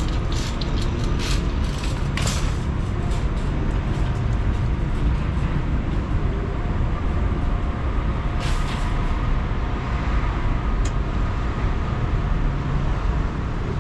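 Steady low rumble of city street traffic, with a run of short rattling clicks in the first couple of seconds.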